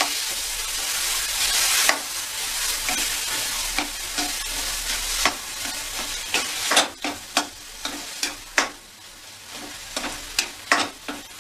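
A spatula scraping and knocking against a steel kadhai as mawa (khoya) is stirred and mashed over the flame, with a sizzling hiss as the mawa heats and softens. The hiss is loudest in the first half. Sharp scrapes and knocks stand out more from about halfway through.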